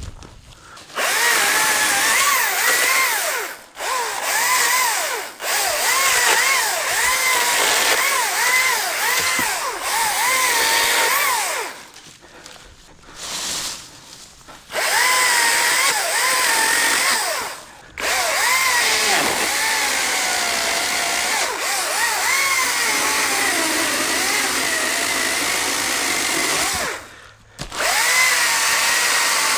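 ECHO DCS-2500T battery top-handle chainsaw cutting into oak in several long bursts, its motor whine dipping and recovering again and again as the chain bogs and frees in the wood. It stops briefly a few times and pauses for about three seconds near the middle.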